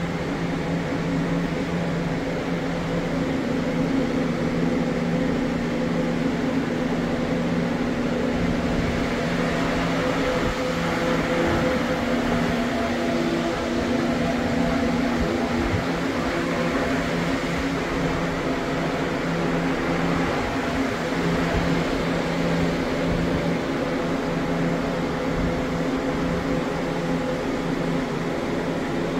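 Steady low hum with several held droning pitches in a bee wintering room, where ventilation fans run and wintering honeybee colonies hum in their hives.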